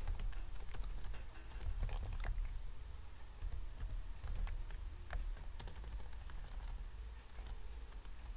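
Computer keyboard typing: irregular keystroke clicks in short runs with gaps, over a steady low hum.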